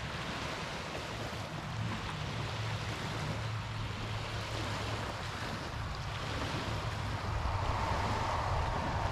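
Water rushing along a moving boat's hull, with wind buffeting the microphone over a steady low drone. The rush grows a little louder near the end.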